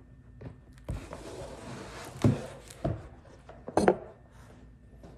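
A cardboard record box set with a magnetic-closing lid being handled and opened: several sharp knocks and bumps, the loudest a little over two seconds in and just before four seconds, with rubbing and rustling between.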